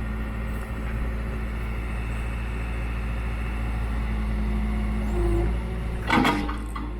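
Case 580N backhoe's diesel engine running steadily, with a brief loud noise about six seconds in.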